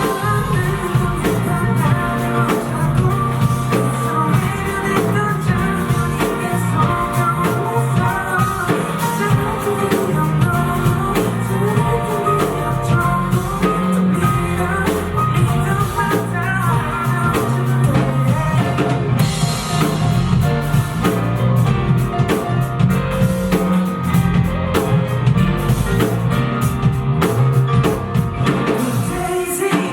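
Live band playing a song: drum kit, guitar and a singer's voice, amplified through a PA.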